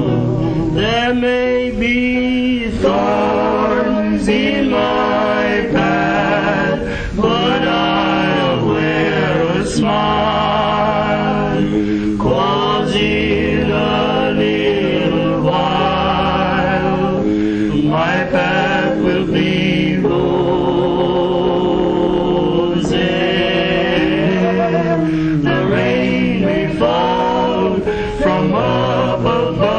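A group of men singing a song together in harmony, the voices held on long notes with vibrato.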